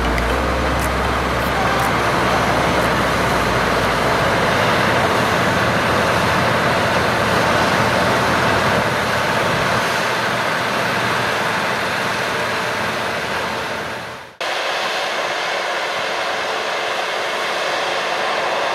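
Steady, even running noise of harvesting machinery, with fading music in the first few seconds. The noise dips to a brief gap about two-thirds through, then carries on as before.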